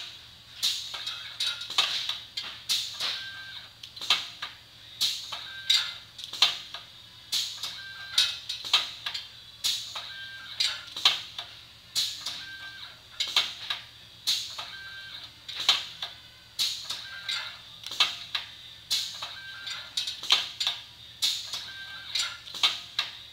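Cutex TBC-50LHX hot strip cutter running automatically, feeding strip and cutting it to length: a repeating group of sharp mechanical clacks about once a second.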